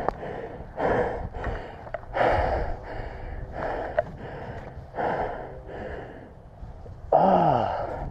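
A man panting hard while running on foot, one heavy breath roughly every second, with a louder voiced gasp near the end.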